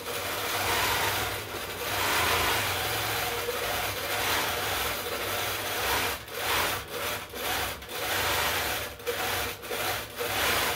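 Handi Quilter Forte longarm quilting machine stitching free-motion test lines, circles and points on spare fabric to check thread tension after a bobbin change. The motor hums steadily under the rapid chatter of the needle, and the level rises and dips several times as the machine is steered by its handles.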